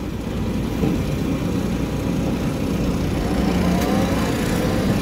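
Excavator's diesel engine running steadily as the machine works, heard from inside its cab. A rising whine comes in about three seconds in, with a couple of light clicks near the end.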